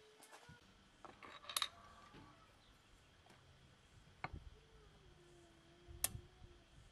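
Sparse clinks and knocks of kitchenware being handled: two quick sharp clinks about a second and a half in, the loudest, then single knocks around four seconds and six seconds in.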